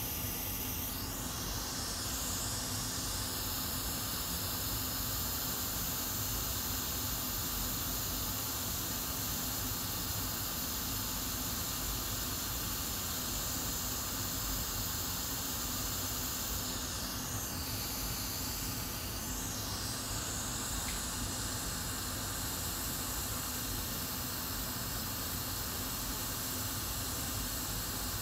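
Hot air rework station blowing a steady hiss of air while the integrated RAM chips on a MacBook Air logic board are reflowed. The hiss changes tone briefly about a second in and again near two-thirds of the way through.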